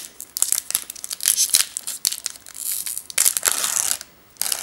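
Foil wrapper of a Pokémon trading-card booster pack crinkling and tearing as it is ripped open by hand, in a run of irregular crackles and rips that stops about four seconds in.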